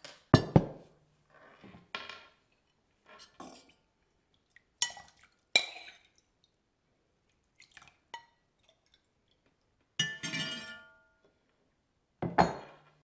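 A cooking pot is set down on a table with two heavy knocks in the first second, then a metal ladle scoops from the pot and clinks against the pot and a plate, about ten separate clinks, some of them ringing briefly.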